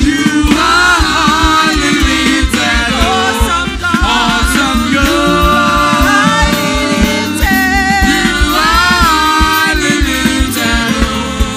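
Live gospel worship music: singing over full band accompaniment with drums.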